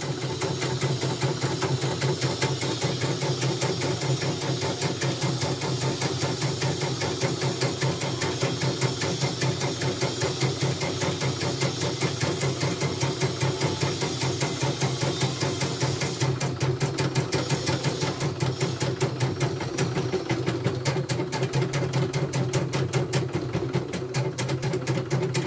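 CNY portable embroidery machine stitching a design: a fast, even needle rhythm over the hum of its motor, running smoothly on test.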